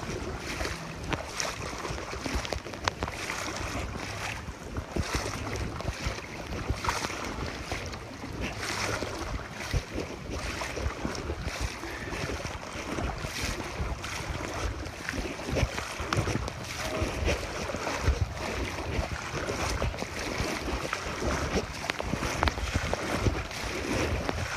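Wind buffeting the phone microphone in gusts, over the rushing and sloshing of floodwater as someone wades through it.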